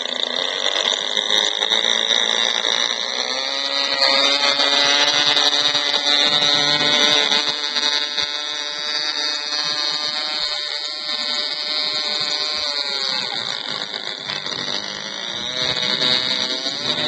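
Small engine of a radio-controlled floatplane running at a high-pitched whine as it taxis across the water. The pitch rises about four seconds in as the throttle opens, eases off in the middle and rises again near the end.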